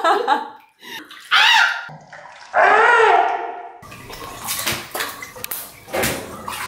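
Bathwater sloshing and splashing in a bathtub, uneven, with small splashes, in the second half. Before it come two short wordless voice sounds.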